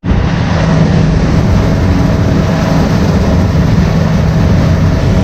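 Heavy farm machinery running steadily and loudly: a constant low drone with an even hum held over it.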